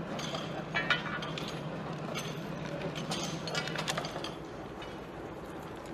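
Metal track tools clinking and scraping against steel rails and ballast stones in a string of irregular sharp clinks, over a low steady hum that stops about four seconds in.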